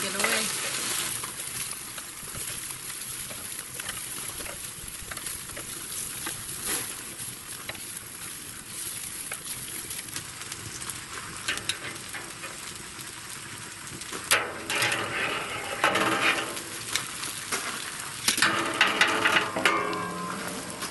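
Chicken thighs sizzling on the hot grate of a Pit Barrel Cooker charcoal drum, a steady hiss, as they are lifted off with metal tongs. In the last several seconds there are metal clanks and scrapes as the emptied grate and the drum's lid are handled.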